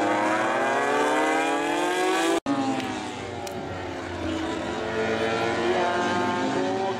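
Honda MotoGP race motorcycle engine at high revs, its pitch climbing steadily as the bike accelerates. It breaks off abruptly about two and a half seconds in, and then the softer engine notes of two bikes farther off waver down and up.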